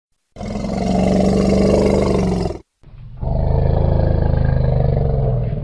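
An elephant calling twice: two long, low calls of about two seconds each, with a short break between them. The second call fades near the end.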